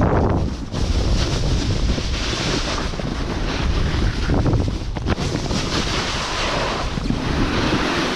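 Wind buffeting the microphone: a loud, rushing hiss with a heavy low rumble that swells and eases every few seconds.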